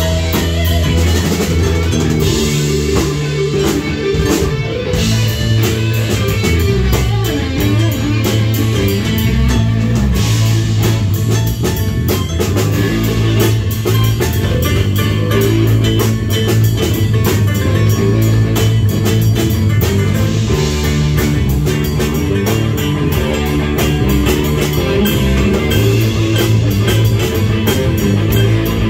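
Rock band playing live, with electric guitar, bass guitar and a drum kit keeping a steady beat.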